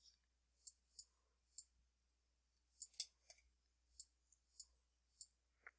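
Faint computer mouse clicks, about ten of them at irregular intervals, over near silence.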